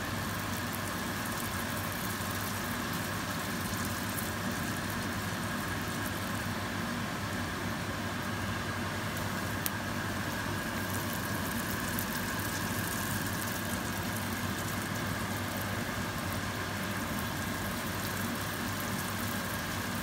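Yeast donut rings frying in hot oil in a pan: a steady sizzle and bubbling of the oil around the dough, under a steady low hum. A single sharp click about ten seconds in.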